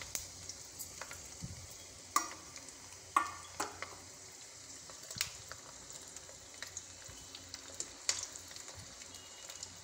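Hot oil tempering sizzling in a small pan as crushed garlic and dried red chillies fry in it, with the burner just turned off. A steady fizz runs throughout, broken by a few sharp pops.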